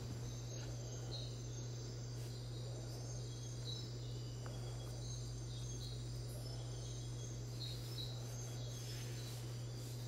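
Rainforest morning ambience: steady insect trilling with short high bird chirps repeating every second or so, over an even hiss of a river and a steady low hum.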